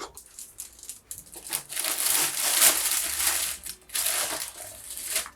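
Close-miked crunchy chewing of crisp fried food, a dense crackling that is loudest in the middle with short breaks.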